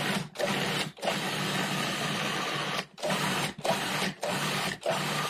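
Cuisinart 14-cup food processor motor and blade pulsed in about seven bursts, most well under a second and one about two seconds long, each starting and stopping abruptly. It is pureeing a bowl of avocado into creamy guacamole.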